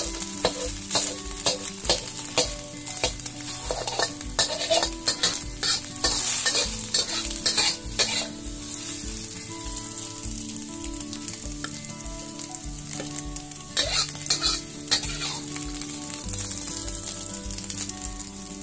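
Metal spatula scraping and chopping scrambled egg in a hot oiled wok, the egg sizzling, with many sharp scrapes against the pan that come thickest in the first half and again a little before the end.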